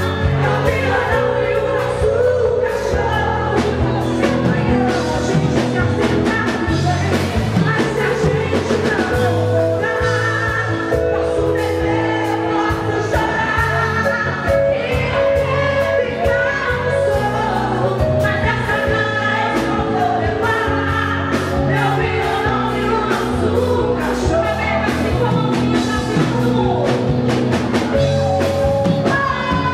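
Live band music: female vocals singing a melody over drums, bass and keyboards, with a steady beat throughout.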